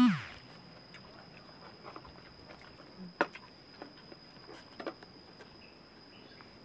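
Faint scattered clicks and soft knocks of hands handling split durian husks and prying the flesh from a pod. At the very start, a loud call rising then falling in pitch is cut off.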